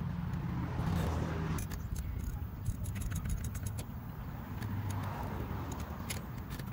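Scattered light clicks and rattles of hand tools and spark plug parts being handled during a spark plug change, over a steady low rumble.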